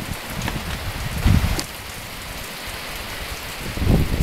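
Heavy rain pouring down as a steady hiss, with two brief low muffled thumps, about a second in and again near the end.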